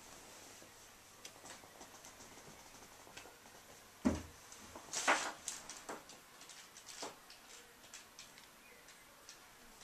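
A dog and a kitten scuffling in play on carpet: faint rustling and pattering, with a thump about four seconds in and a louder brief rush of scuffling a second later.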